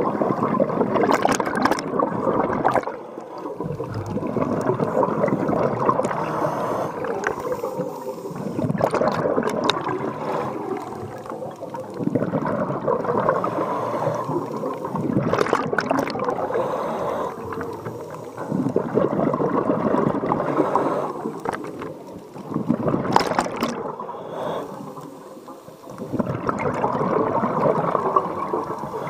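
Scuba diver breathing through a regulator underwater: rushes of exhaled bubbles every few seconds, with quieter dips between breaths.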